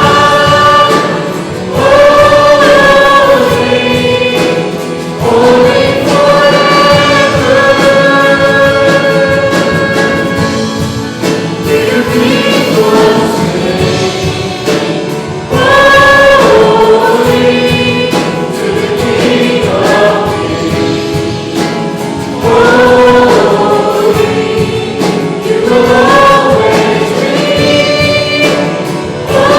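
A group of voices singing a Christian worship song in long, held phrases, with music underneath.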